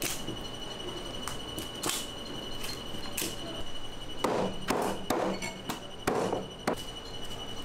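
Knocks and dull thuds from a large tuna being cut and handled on a cutting board, a few scattered in the first half and a quicker run of heavier knocks and short scrapes in the second half. A steady high-pitched whine runs underneath.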